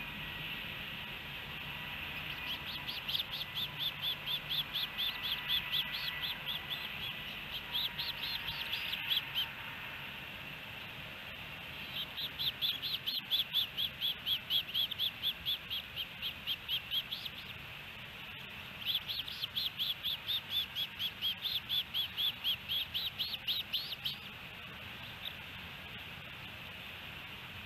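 Osprey calling: three runs of rapid, high, evenly repeated chirps, about three a second, each run lasting several seconds with short pauses between.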